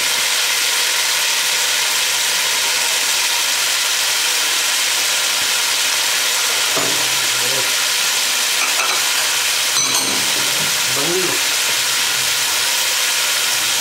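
Chicken pieces frying in hot oil in a metal pot, giving a steady, even sizzle.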